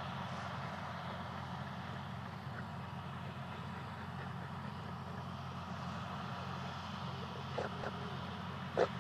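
Farm machinery engine running with a steady drone. Two short, sharp sounds cut through it near the end, the second one louder.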